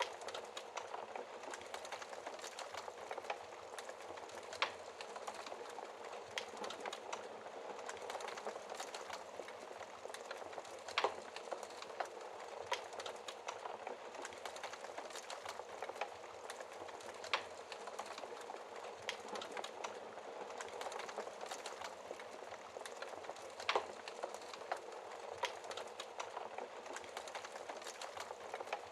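Wood fire burning in a fireplace behind a glass screen: a steady soft hiss with sharp crackling pops every few seconds.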